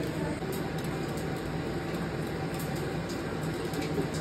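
Wire whisk beating eggs in a small stainless-steel bowl, with light irregular clinks of the whisk against the metal. A steady low hum runs underneath.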